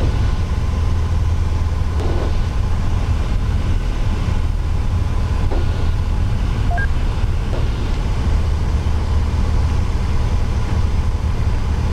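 Piper PA-28-236 Dakota's Lycoming O-540 six-cylinder engine and propeller droning steadily, heard inside the cabin on final approach.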